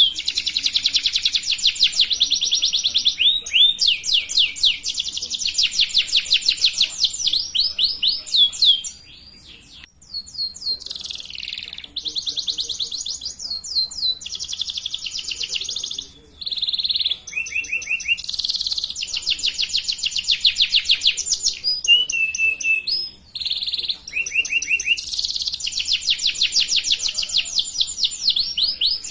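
Domestic canary singing: long runs of fast trills, each a quick string of the same high note repeated, switching to a new trill every second or two, with brief breaks about nine, sixteen and twenty-three seconds in.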